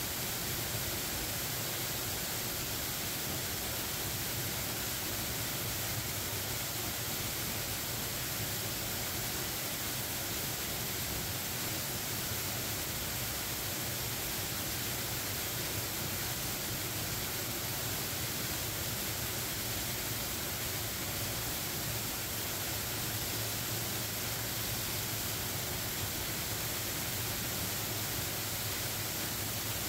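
Double-drop waterfall in good flow, a steady, unbroken roar of falling water.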